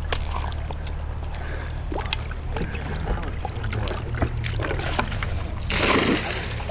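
A bucket of stocked trout tipped into a creek: one loud splash of water about six seconds in, after scattered clicks and knocks from the bucket and footing on the bank.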